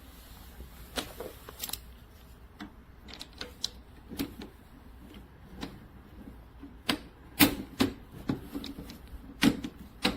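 Irregular sharp clicks and knocks, a dozen or so, with the loudest cluster past the middle.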